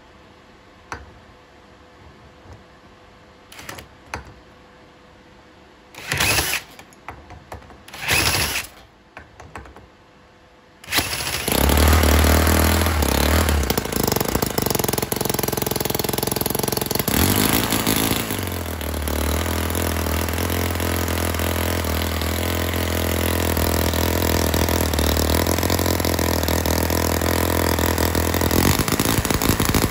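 Kiwi Mk II single-cylinder overhead-valve four-stroke model engine with spark ignition. After two short bursts of sound, it fires about eleven seconds in and keeps running steadily and loudly. Its running note changes briefly near the middle.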